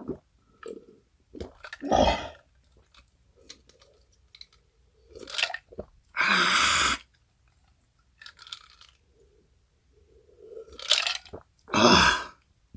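Close-miked mouth sounds of a person eating and drinking: soft chewing and wet mouth noises, broken by about five loud, breathy blasts, the longest lasting about a second.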